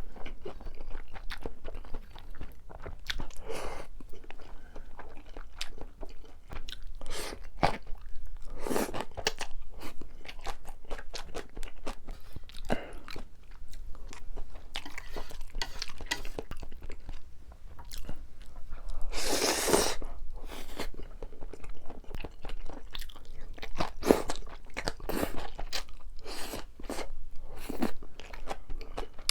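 A person chewing and crunching a mouthful of Chapagetti noodles and green onion kimchi, with many small wet clicks. A longer rushing sound comes about 19 seconds in.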